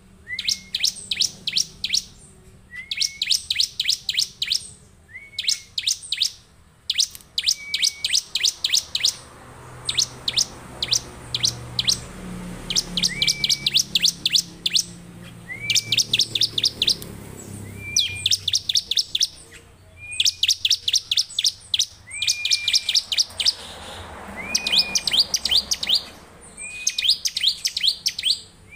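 Caged ciblek (bar-winged prinia) singing in full, steady song. Phrase after phrase each opens with a short upward-hooking note and runs into a fast rattle of sharp, high ticking notes, with brief pauses between phrases.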